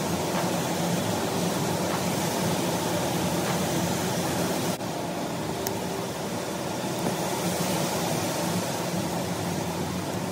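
A steady mechanical whirring hum, with a brief break about five seconds in.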